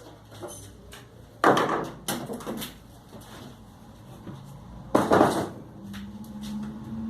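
Two loud wooden knocks about three and a half seconds apart, with lighter clatter between them, from pieces being handled at the woodworking bench.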